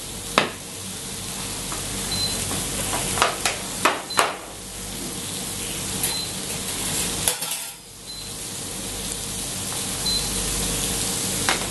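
Steak sizzling steadily on a griddle, with a wire whisk stirring and clinking against a steel saucepan of mashed potato; several sharp metal clinks come in the first half. A faint high beep repeats about every two seconds.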